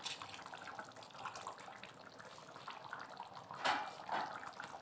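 Thick chicken curry simmering in a pan, bubbling and popping quietly, with one sharp knock about three and a half seconds in.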